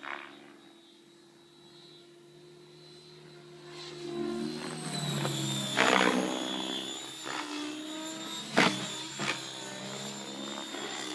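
Mikado Logo 600 electric RC helicopter in flight: the whine of its motor and rotor is faint at first, then grows louder about four seconds in as it comes closer, with a few sharp whooshes near six and eight and a half seconds.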